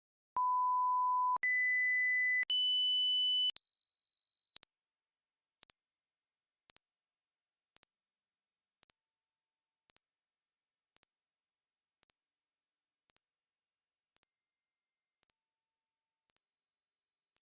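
Hearing-test pure tones: fifteen steady sine tones of about a second each, every one a step higher than the last. They rise from a mid-pitched beep to a very high, thin whine near the upper limit of hearing, with a faint click at each change, then cut off suddenly.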